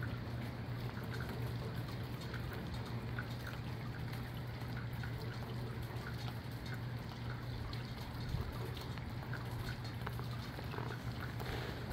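Steady rain falling, with scattered drips and trickling water, over a steady low hum.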